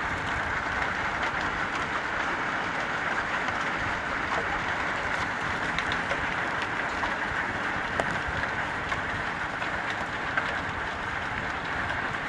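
Heavy rain falling steadily during a thunderstorm, a constant hiss with a few sharp drop hits.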